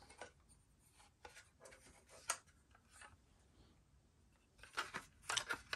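Faint clicks and scrapes of a 2.5-inch SSD in its drive tray being handled and pushed against the tower's drive bay. There is a sharp click about two seconds in and a quick cluster of clicks near the end.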